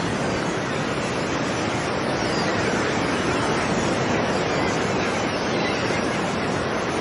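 Ocean surf breaking and washing onto a beach: a steady, unbroken wash of noise.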